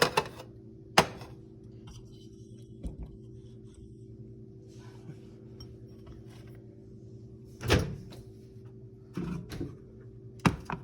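Microwave oven running with a steady low hum, while a few sharp clicks and knocks sound over it, the loudest a thump about eight seconds in.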